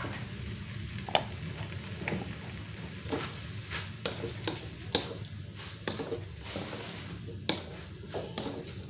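A spatula stirring and tossing fried instant noodles in a frying pan, with irregular scrapes and knocks against the pan over a low sizzle, as sweet soy sauce is mixed through.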